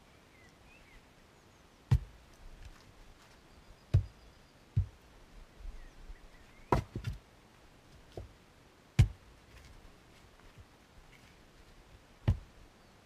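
Fiskars X25 splitting axe striking and splitting firewood on a chopping block: sharp wooden thunks every couple of seconds, about seven strikes in all, the loudest about two and nine seconds in, with a few lighter knocks in between.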